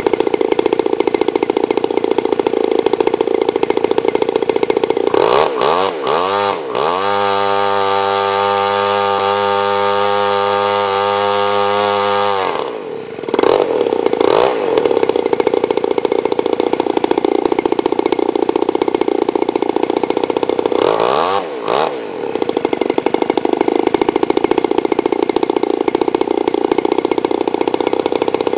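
RCGF 60cc rear-exhaust two-stroke gasoline engine turning a propeller at high throttle. About a fifth of the way in it is throttled down to a steady idle and held there for about five seconds, then opened back up to full throttle. Near three-quarters of the way in the speed dips briefly and recovers. It runs properly now that the plugged diaphragm-pressure port feeding the carburetor's fuel pump has been cleared.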